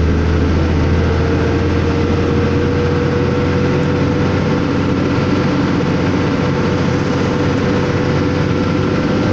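A two-axle truck's diesel engine running steadily under way, heard from inside the cab, its note rising slowly. Tyre noise from the wet road runs underneath.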